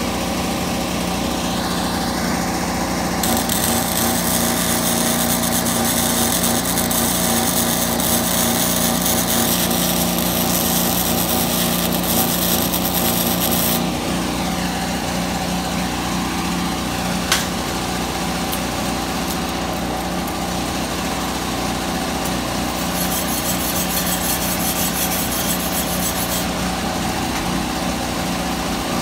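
MIG welder arc crackling as beads are run, one long run from about three to fourteen seconds in and a shorter one near the end, over a steady engine-like hum. A single sharp click between the two runs.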